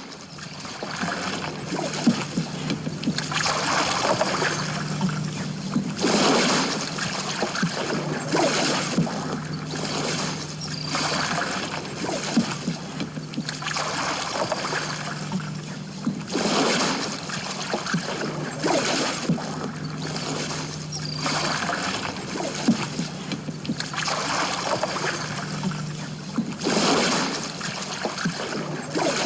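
Slow footsteps, one roughly every two seconds, each a broad swishing, crackly step, over a faint steady low hum.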